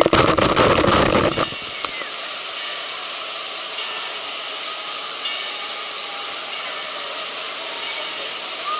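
A giant tipping bucket of about 1,000 gallons dumping its water straight onto the camera: a loud crashing deluge for about a second and a half. Then a steady hiss of water spraying and running on the water play structure.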